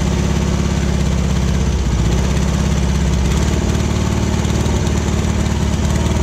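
1995 VW Kombi's air-cooled 1.6 flat-four engine idling steadily with an even, fast beat, heard up close at the open rear engine bay. It keeps running while the battery cable is being pulled off, a home test showing that the alternator is working.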